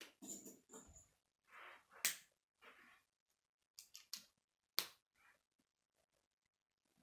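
Plastic K'nex pieces being handled and snapped together: rustling of parts with a few sharp clicks, the loudest about two seconds in and again near five seconds in.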